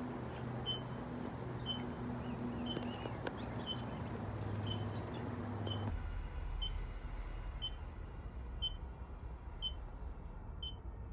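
Short high-pitched electronic beeps repeating about once a second, over a faint steady background hiss.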